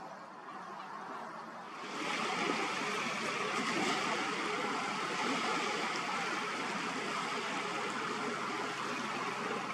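Tidal estuary water running and trickling, a steady rushing hiss that comes in about two seconds in and stops right at the end.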